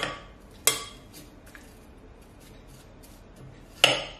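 Heavy metal spatula stabbing down into a frozen ice-cream base in a glass bowl to break it into pieces. There are three sharp knocks, two within the first second and one near the end, with softer taps between.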